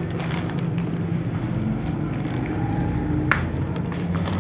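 Steady low motor hum under a background wash of noise, with one sharp click a little after three seconds in.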